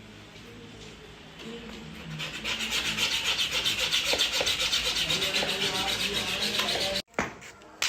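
Rapid rhythmic scraping, about six strokes a second. It is faint at first, grows louder about two seconds in, and stops abruptly near the end.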